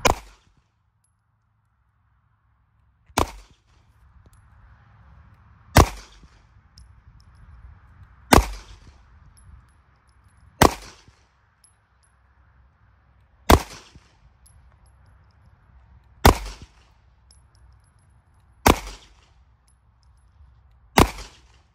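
Smith & Wesson M&P Shield Plus pistol firing nine slow, evenly paced shots, about one every two and a half seconds, each a sharp crack with a short echo.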